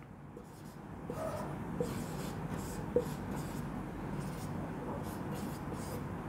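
Marker pen writing on a whiteboard in a run of short scratchy strokes, with a few light taps as the tip touches down.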